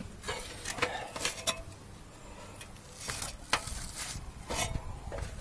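Shoes knocking on the rungs of an aluminium extension ladder during a climb down: irregular metallic taps and clanks, some with a short ring, about a second apart.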